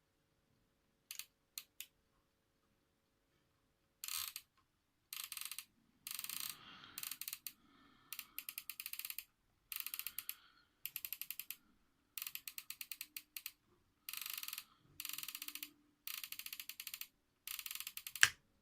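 Sony flip clock's setting mechanism being wound by hand, its flaps and gears ratcheting over in about a dozen short runs of rapid clicks, with a single louder click near the end.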